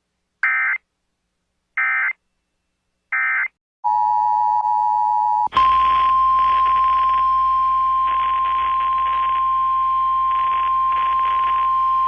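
Emergency Alert System tones: three short screeching data bursts of the digital alert header, then the two-tone attention signal starting, cut off after under two seconds by a long steady single-pitch alert tone heard over a noisy background. The sequence marks the start of a new warning broadcast.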